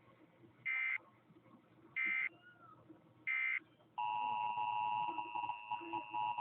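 Emergency Alert System test: three short bursts of digital data tones about a second and a bit apart, then about four seconds in the steady two-tone EAS attention signal begins.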